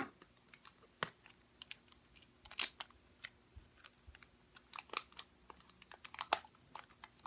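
Fingernails picking and prying at a small toy blind box that is hard to open: faint, irregular light clicks, taps and scrapes of the packaging.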